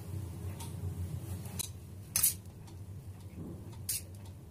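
A few light clinks of a metal spoon against a steel dish while samosa stuffing is scooped, the loudest about two seconds in and another near the end, over a low steady hum.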